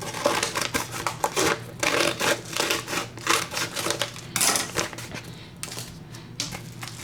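A shipping package being opened by hand: quick, irregular rustling, crinkling and clicking of packaging, busiest for the first four seconds or so and thinning out after.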